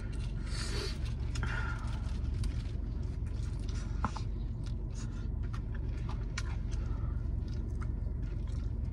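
Close-up mouth sounds of a person eating a bone-in fried chicken wing: chewing, smacking and sucking meat off the bone, with scattered small clicks, over a steady low hum inside the car.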